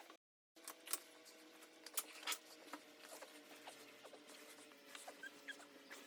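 Scattered light clicks and taps over a faint steady hum, with a brief total dropout just after the start.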